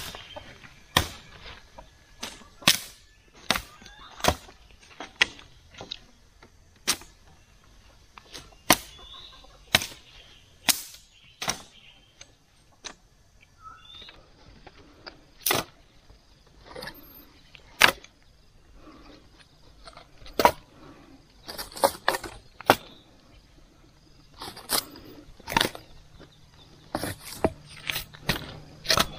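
Repeated sharp chopping blows on wood, irregularly spaced about a second or two apart, with quicker clusters of blows in the later part.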